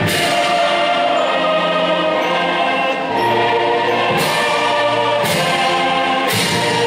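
Background music: a choir singing long held chords, moving to new chords a few times in the second half.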